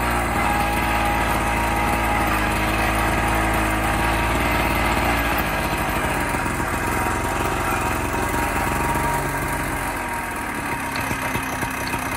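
Agzat Terra Vari two-wheel walking tractor's engine running hard at top speed. About ten seconds in, its deep low note drops away as it slows.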